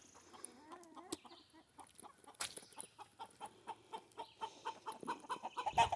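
Hens clucking softly, then a run of quick light taps, about three or four a second, as they peck at egg thrown to them.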